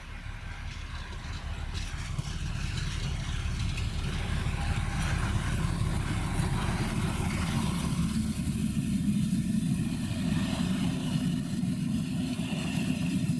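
Diesel locomotive running with a low engine rumble, growing louder over the first few seconds as it draws near, then passing close by with the rolling noise of the passenger coaches it hauls.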